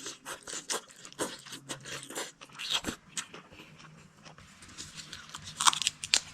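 A person chewing and biting spicy chicken giblets close to the microphone: a run of irregular crunchy, wet clicks from the bites and mouth.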